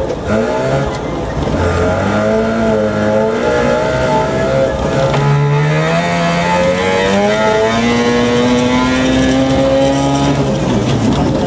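Mazda RX2 rally car's rotary engine under hard driving, heard from inside the car. The revs dip at the start, then climb steadily through a long pull from about five seconds in, and fall away near the end.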